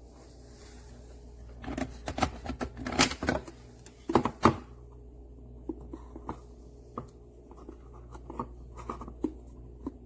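Clicks, knocks and scraping from the plastic parts of a burr coffee grinder being handled, loudest in a quick run of knocks in the first half, then lighter scattered clicks.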